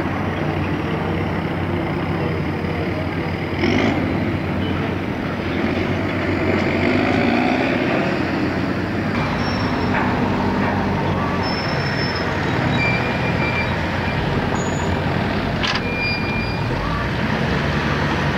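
Heavy diesel construction machinery running steadily with a low engine drone. There is a sharp knock about four seconds in, another near the end, and a few short high beeps in the second half.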